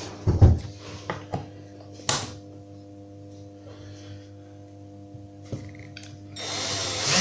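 A few knocks and clatters from tools and wood being handled, then about six seconds in a power drill spins up, its motor pitch rising and then holding.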